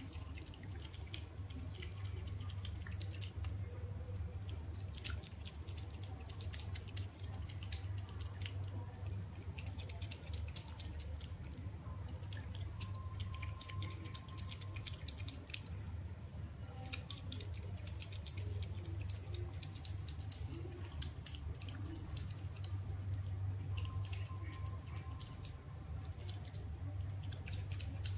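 An otter chewing pellet food with its mouth open, a run of quick, crisp clicking crunches coming in clusters, over a steady low hum.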